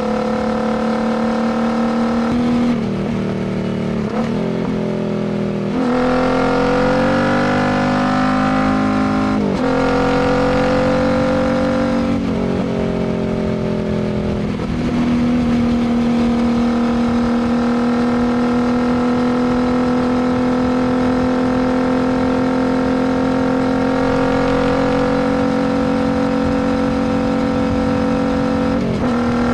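Royal Enfield Continental GT 650's parallel-twin engine through a Diablo full exhaust, heard from the bike on the move. The note falls back off the throttle, then climbs under acceleration with a short break at a gear change and eases off again. For the second half it holds a steady cruising note, with a brief dip near the end.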